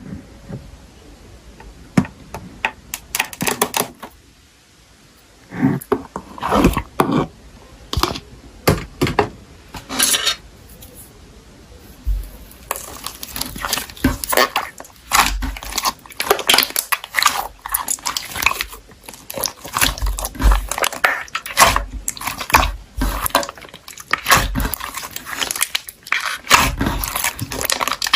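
Slime being squeezed and poked by hand: a string of sticky, crackling pops and squishes, sparse at first and nearly continuous through the second half.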